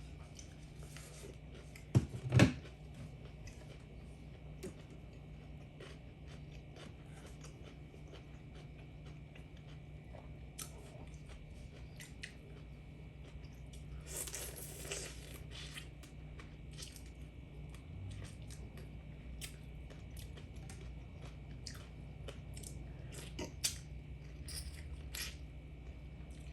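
A person chewing and biting food at close range, with scattered small clicks of mouth and utensil sounds. Two loud knocks come about two seconds in.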